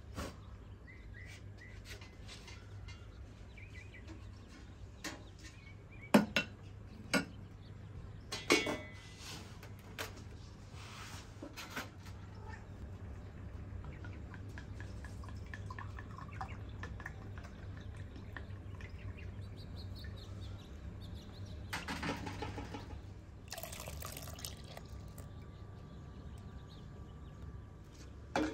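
Vinegar pouring from a glass jug, among several sharp clinks and knocks of glass and metal kitchenware, with birds chirping faintly and a steady low hum underneath.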